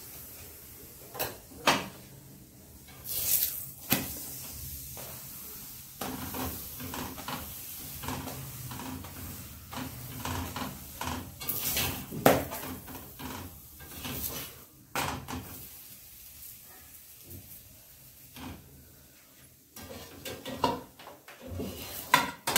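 A steel spoon clinks and scrapes against a tawa as a paratha is pressed and turned, with scattered sharp clatters of utensils on the metal griddle.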